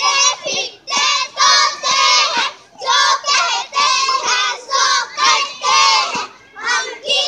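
A group of young girls chanting together in unison, a loud rhythmic sing-song call in short phrases about two a second.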